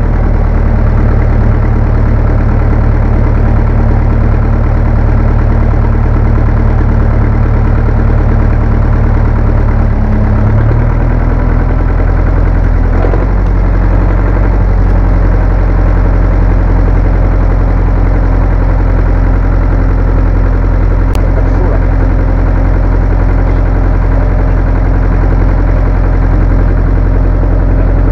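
1967 Zetor tractor's diesel engine running steadily just after being started, its speed shifting briefly about ten seconds in and again a few seconds later.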